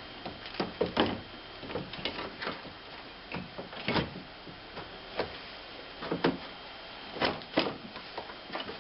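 Irregular plastic clicks, knocks and rattles from a car headlight assembly being handled and its wiring connector plugged in. The strongest knocks come about a second in, around four seconds, and a pair near the end.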